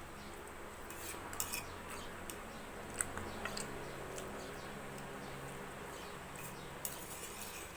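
Cutlery clicking and scraping against a plate while eating, with a few sharp clinks, the loudest about three seconds in.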